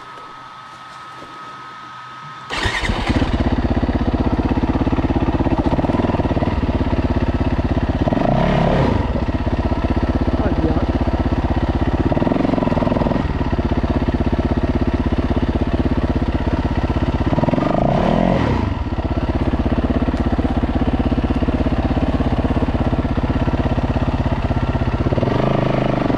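Dirt bike engine firing up suddenly about two and a half seconds in, after a failed attempt to get it going, then idling with several short throttle blips that rise and fall in pitch.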